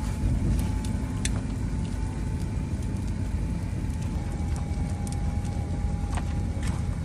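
Heavy machinery running: a steady low rumble with a faint steady whine and a few scattered sharp ticks.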